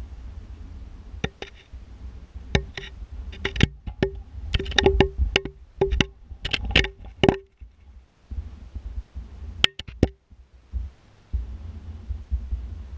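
Irregular sharp knocks, many with a short ringing tone, over a low rumble. They come thickly from about a second in until about seven and a half seconds, then twice more near ten seconds.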